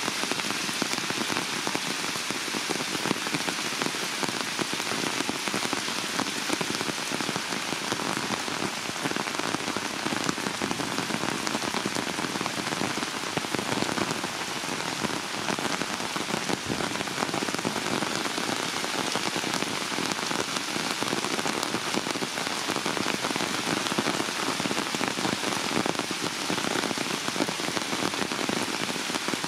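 Heavy rain falling steadily on leaves, a tree trunk and wet ground: a dense, even downpour hiss with close patter of drops.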